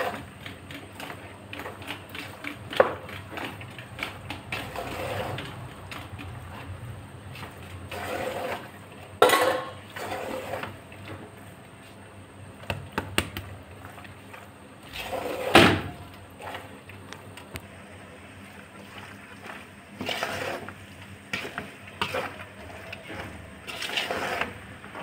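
Spoon stirring and tossing pasta and noodles in an aluminium pot: repeated scrapes and clicks of the spoon on the pot, with two louder knocks about nine and fifteen seconds in.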